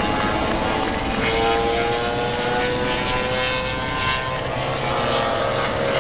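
Racing motorcycle engine running at high revs as the bike comes down the track, its pitch climbing steadily.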